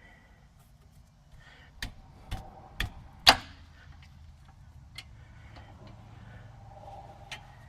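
Wrench and socket knocking and clicking on a 14 mm rear brake caliper bolt as it is worked loose. There are four sharp metallic knocks about half a second apart, the last one the loudest, then a couple of lighter clicks.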